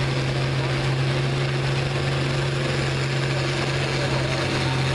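International 1456 tractor's turbocharged six-cylinder diesel running steadily under load as it pulls a weight-transfer sled, a constant low engine drone.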